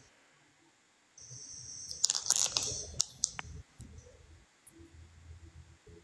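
Soft clicks and rustling handling noise, starting about a second in after a moment of near silence, with a faint low hum toward the end.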